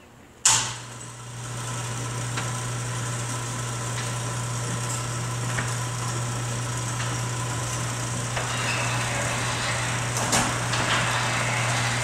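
Commercial garage door opener's electric motor starting with a sharp clunk, then running with a steady hum as its chains and belt drive the sectional door along its track.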